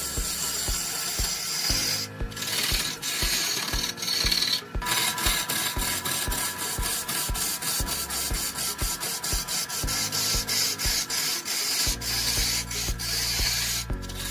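Wood being worked with an abrasive, a continuous scraping rub broken by a few short cuts, over a steady low beat of about two thuds a second.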